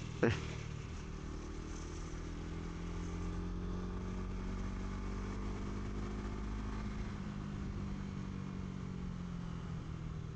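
Honda CBR150R's single-cylinder engine running steadily on the road. Its pitch rises a little over the first few seconds, holds, then eases down near the end.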